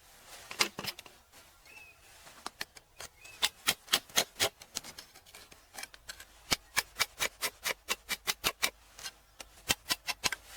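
A hard tool tapping and chipping at stone: a quick run of sharp clicks, sparse at first and then about three or four a second from a couple of seconds in.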